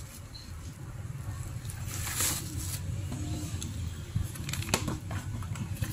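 Bubble-wrap packaging rustling and crinkling as a wrapped mini keyboard is slid out of its box. There is a longer rustle about two seconds in and a few sharp crackles near the end, over a steady low hum.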